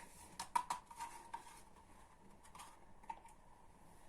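A mixing utensil clicking and scraping against a bowl in quick, irregular taps while flour is stirred into cake batter, busiest in the first second and a half and then thinning out.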